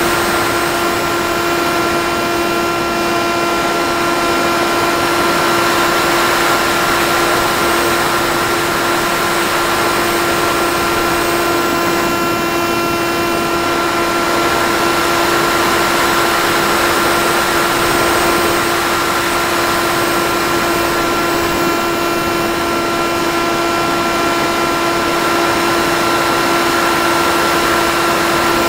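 Battery-powered electric motor and propeller of a Miniracewing FPV flying wing in flight, picked up by its onboard camera: a steady whine at an even pitch over a rushing hiss.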